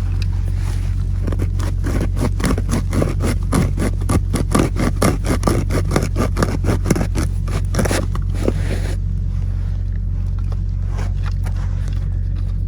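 A 4-inch hole saw on a hand-cranked speed handle cutting into a 6-inch plastic drain tile main: a fast run of rasping strokes, about four a second, that stops a few seconds before the end. A steady low rumble runs underneath.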